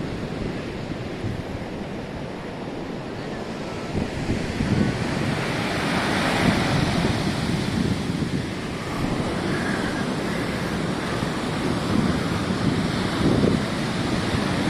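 Ocean surf breaking and washing up the beach, mixed with wind buffeting the microphone in gusts.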